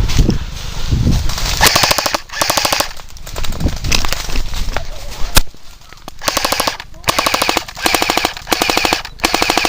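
Airsoft electric rifles firing full-auto: a string of short bursts of rapid, evenly spaced shots with brief pauses between them.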